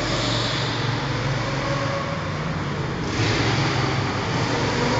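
Go-karts running laps on an indoor track; the kart noise grows louder about three seconds in.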